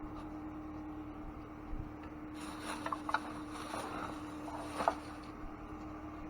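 A steady low hum with scattered rustling and light knocks as things in a dumpster are handled, thickest between about two and five seconds in.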